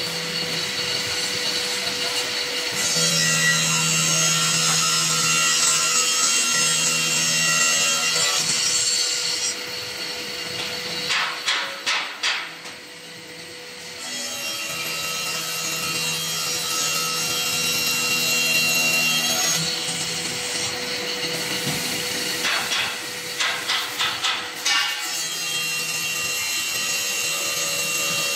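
Blue Elephant 2131 ATC CNC router's aggregate-head circular saw blade cutting a wooden board over a steady machine whine, in two long passes of several seconds each. Between the passes come short runs of quick sharp bursts.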